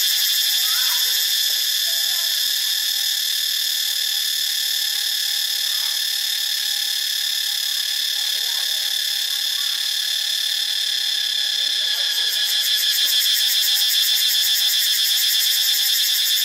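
Cicada calling: a steady, rapidly pulsing buzz that grows a little louder about twelve seconds in.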